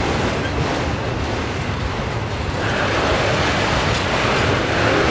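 Autorack freight cars of a passing freight train rolling by close at hand: a steady rumble and rush of wheels on rail, growing louder about two and a half seconds in.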